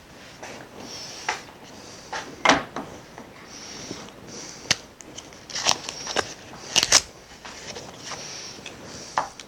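Workbench handling noises while the neon tube's electrodes are blocked out with black paint: scattered knocks and clicks of tools and glass being set down and moved, the loudest about two and a half, five and seven seconds in, with a few short, faint hisses between them.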